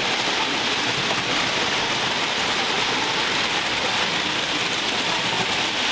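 Model trains running on a model railway layout, giving a steady, even whir of small motors and wheels on the track.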